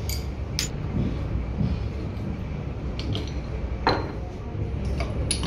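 A handful of sharp metallic clinks and taps from hand tools and loose parts while an old piston water pump is being dismantled, the loudest about two-thirds through, over a steady low rumble.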